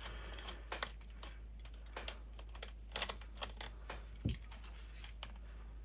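Irregular small clicks and taps of a hand tool and small parts as the wheels are taken off an RC car, with a soft low thump about four seconds in.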